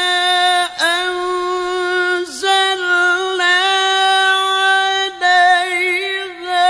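A male qari reciting the Quran in the melodic mujawwad style: one long, high held note with wavering ornaments, dipping briefly three times, about a second in, about two and a half seconds in and about five seconds in.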